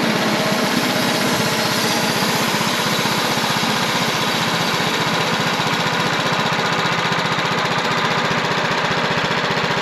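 Wood-Mizer portable band sawmill running steadily at full speed, its engine and band blade working through a pine log to take off a board.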